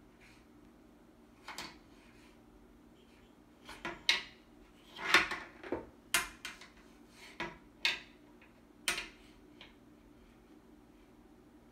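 Homemade light stick (a wooden dowel in PVC pipe with a metal eye hook) knocking and clicking against a wall light switch and its plate as it is worked onto the toggle. About a dozen sharp clicks and taps come irregularly, the loudest about five seconds in.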